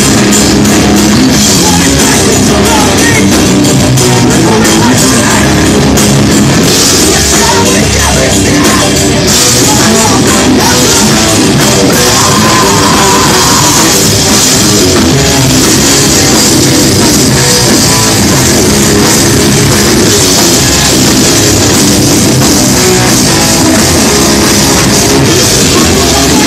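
Loud live rock band: electric guitars and a drum kit playing together, dense and unbroken throughout.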